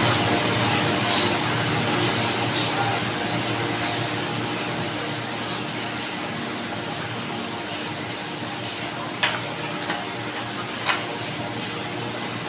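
Electric fan running with a steady whir and a faint hum, and two sharp clicks near the end.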